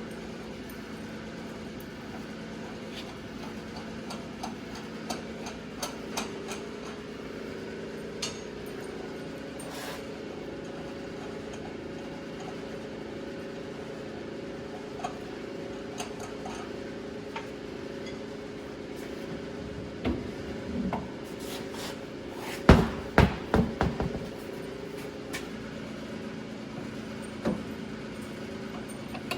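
A car engine idling steadily with a slight warble, under scattered tool clicks and clinks. About 23 seconds in comes a quick run of about half a dozen loud knocks, like hammer or tool strikes.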